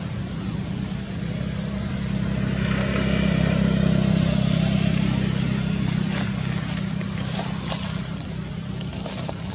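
A motor vehicle's engine running, a steady low hum that swells to its loudest about four seconds in and then eases off.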